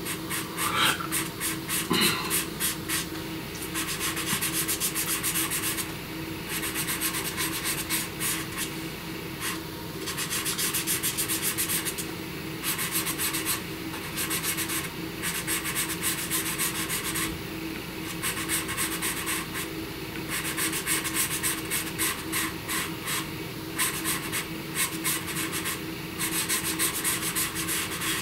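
Dark gray pastel pencil scratching across paper in rapid short hatching strokes, in runs of one to two seconds with brief pauses between them.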